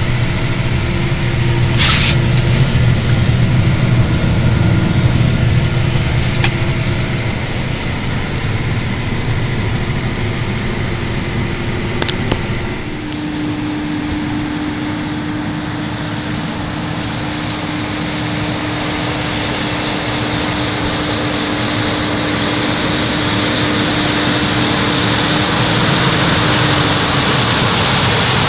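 Versatile 550 four-wheel-drive tractor's diesel engine running, first as a steady hum heard inside the cab with a few sharp clicks. Then, about halfway, it is heard from outside as a steady whine with a rising hiss that grows louder toward the end.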